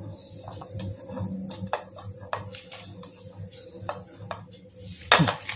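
Scattered light clicks and ticks of dry coriander and cumin seeds being scraped off a ceramic plate and dropped into a small steel pan. A louder knock comes about five seconds in.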